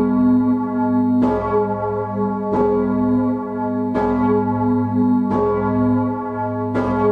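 Large 4,100 kg bronze church bell, strike note G-sharp, swinging at full swing and rung close up. Its clapper strikes five times, about every 1.4 s, over a sustained ringing hum.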